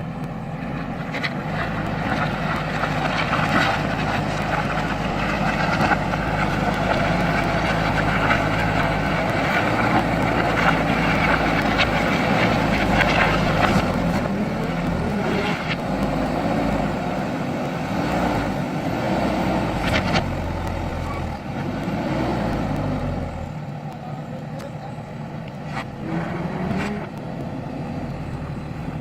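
JCB backhoe loader's diesel engine running under working load, its pitch shifting as it works, with scattered clanks and knocks. It runs louder through most of the stretch and drops back to a quieter running note near the end.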